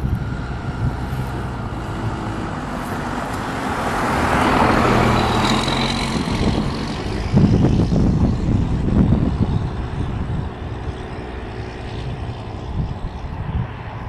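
Road traffic passing close by: one vehicle swells up and fades about four to six seconds in, then a rougher, louder low rumble follows, over a steady low engine hum.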